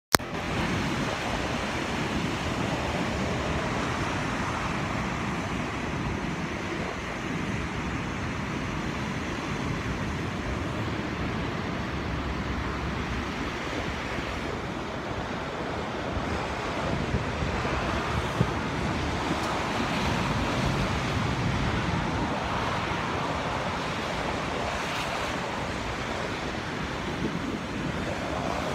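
Heavy ocean surf breaking and churning over black rocks, a steady rush of white water that swells slightly now and then.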